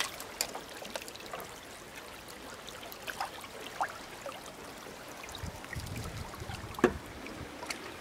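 Shallow river water trickling and lapping, with small splashes as hands hold a brown trout in the current to release it. A low rumble comes in about five and a half seconds in, and a single sharp knock sounds just before seven seconds.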